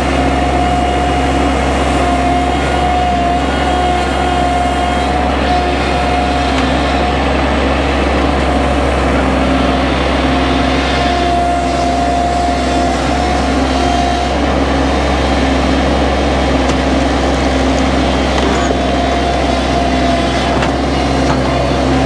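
Bobcat MT100 mini skid steer's engine running steadily under load while it powers a log-splitter attachment through oak rounds, with a high whine that wavers and fades out and back in a few times.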